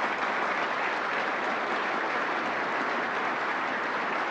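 Large audience applauding, a steady even clapping that neither builds nor fades.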